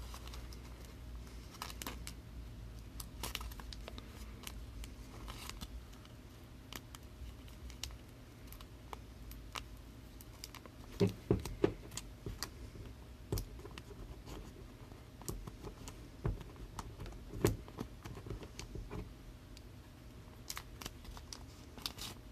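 Trading cards and plastic card holders being handled: scattered light clicks, taps and rustling, with a few louder knocks, as a thick card is tried in a holder that it will not fit.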